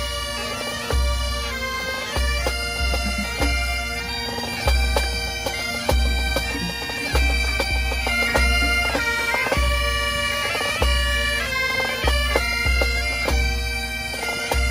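Bagpipes playing a tune over their steady drone, with repeated deep low thumps beneath.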